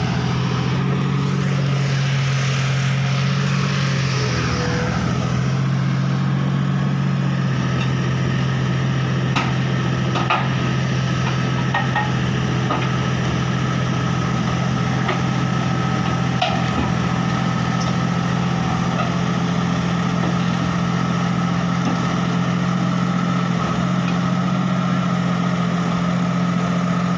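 Komatsu hydraulic excavator's diesel engine running steadily under load as the machine levers itself onto a flatbed truck with its boom and tracks, with a few light knocks in the middle.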